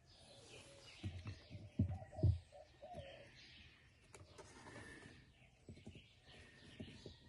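Birds chirping and calling repeatedly in the background, with a few sharp low thumps of handling between about one and two and a half seconds in.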